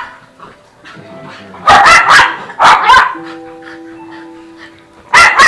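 Dog barking in short sharp barks: a quick run of barks about two seconds in, another just after, and more near the end, over quiet background music.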